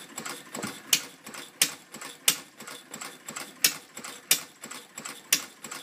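Replica of Henry Ford's 1893 first engine, a small single-cylinder gasoline engine, running and puttering: sharp ticks roughly every two-thirds of a second, not quite even, with lighter clicks between them.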